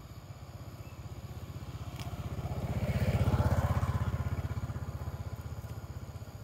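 Motorbike engine passing by: its rapid, even low pulsing grows louder to a peak a little past halfway, then fades away.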